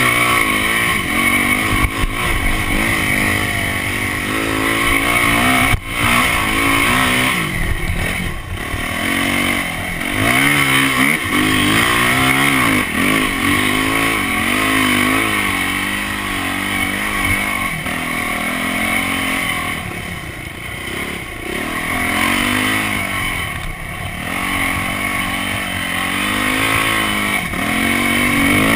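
Yamaha dirt bike engine heard on board from the rider's camera, its revs climbing and dropping again and again as the throttle is worked and the gears change.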